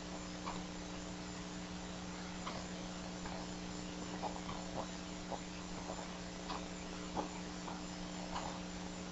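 Bald eaglet giving short, high peeps at irregular intervals, about a dozen of them, begging while it is fed. Under them runs a steady electrical hum in the nest camera's audio.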